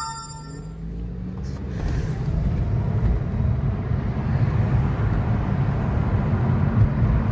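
Honda Civic 1.8 L R18 four-cylinder engine and road noise while driving, a steady low rumble that picks up as the car accelerates a second or two in. A brief high chime-like tone sounds at the very start.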